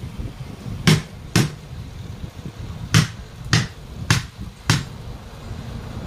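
Hammer blows on a truck wheel: six sharp strikes in three pairs, each pair about half a second apart.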